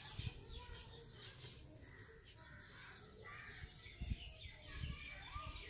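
Crows cawing faintly in the background, with a couple of soft low thumps about four and five seconds in.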